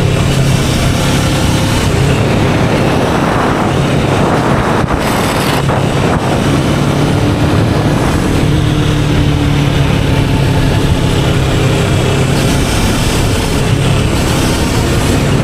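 Kawasaki Vulcan S 650 parallel-twin engine running at cruising speed through its stock exhaust, with heavy wind noise buffeting the microphone.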